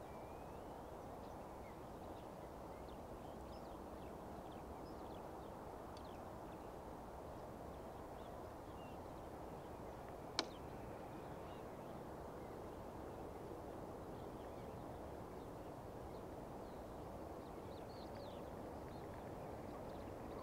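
Faint, steady low rumble of an approaching Boeing 777F's GE90 engines on final approach, growing slightly louder near the end. Birds call faintly throughout, and there is one sharp click about ten seconds in.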